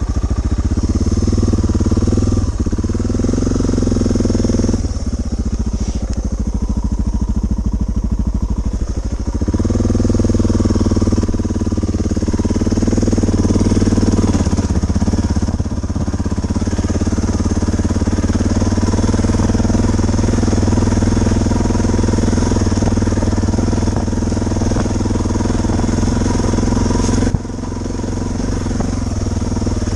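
Suzuki DR650's single-cylinder four-stroke engine under way, its pitch climbing and dropping several times as it accelerates and shifts gears. It eases off sharply near the end.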